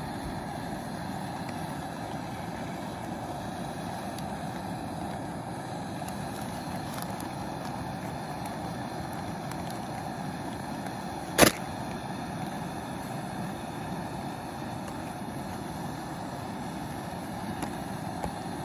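A small canister gas camp stove burning with a steady rushing sound. One sharp click about two-thirds of the way through.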